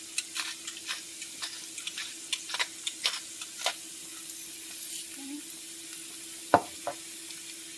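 Sliced mushrooms starting to fry in hot oil in a nonstick pan, with a light sizzle and scattered crackling pops that thin out after the first few seconds, over a steady low hum. About two-thirds of the way through comes a single sharp knock, the loudest sound, with a smaller one just after it.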